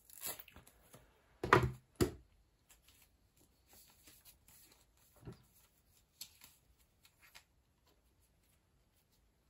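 Faint rustling and light clicks from hands handling a plastic fashion doll and its clothes while changing its outfit, with two louder knocks about a second and a half and two seconds in.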